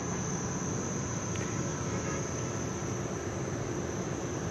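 Crickets trilling steadily in one high, thin, unbroken tone over a low background rumble.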